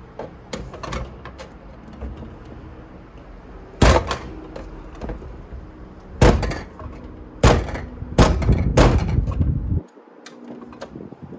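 Metal tool forcing at the power button of a Mid 2011 iMac's aluminium back housing: a few sharp loud knocks, then a stretch of rough scraping and prying about eight seconds in that stops abruptly. The button stays in place.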